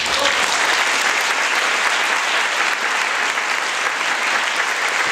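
Audience applauding steadily after a tango performance ends.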